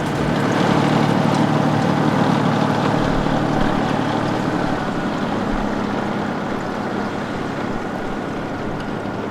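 A train running past at the level crossing: a loud, steady rushing rumble with a low hum that swells about a second in and then slowly fades.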